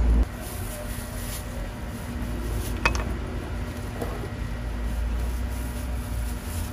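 Steady low street-market background hum, with light rustling of a plastic food-handling glove early on and a single sharp click about three seconds in.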